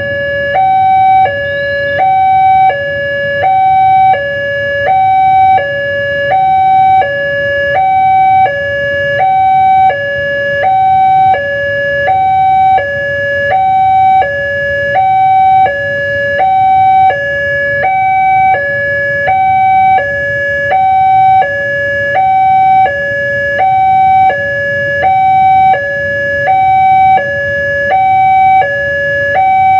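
A two-tone siren alternating steadily between a high and a low note, one high-low cycle about every second and a half.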